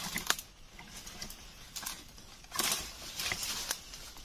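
Bursts of rustling and scuffling with sharp clicks, loudest past the middle.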